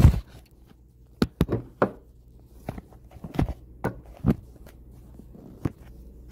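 Handling noise from a phone camera gripped and repositioned by hand: about ten irregular knocks and taps, one loud bump at the start and another at the very end.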